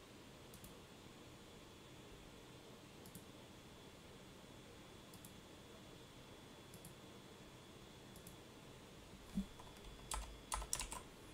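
Faint single clicks every second or two over quiet room hiss, then a quick run of louder sharp taps near the end.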